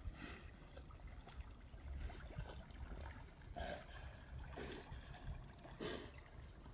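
Faint outdoor ambience by a pond: a low wind rumble on the microphone and faint water sounds, broken by a few short breathy puffs.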